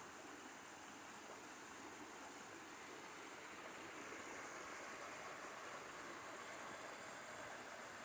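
Small mountain stream running over rocks and a low cascade: a steady, faint rush of water.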